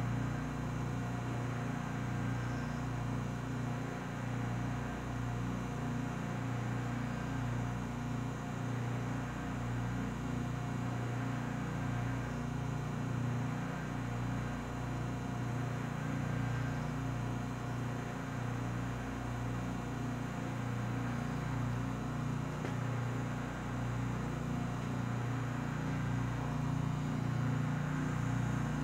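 SST 2200 Turbo vacuum furnace system running under vacuum: a steady low machine hum with several held low tones and an even hiss, unchanging throughout.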